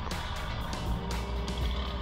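Background music with a steady beat over the low rumble of an engine.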